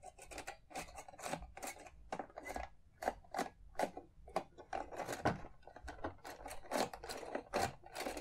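Hard plastic parts of a Hasbro Millennium Falcon toy being handled, clicking and rattling in a quick irregular series, several clicks a second, with short scraping rubs between them.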